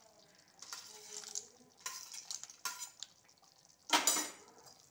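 A spoon scraping and clattering on a steel plate as fried dried berries (sundakkai and manathakkali vathal) are pushed off it into a clay pot of gravy. There are several short scrapes, and the loudest comes about four seconds in.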